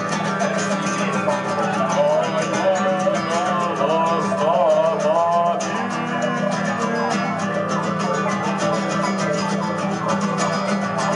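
Live music: a guitar strummed over a steady low hum, with a wavering melodic line partway through.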